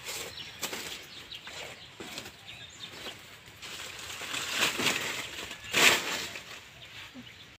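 Dry banana leaves and stalks rustling and crackling in irregular bursts as they are pulled and handled at the base of a banana plant, with the loudest rustle about six seconds in.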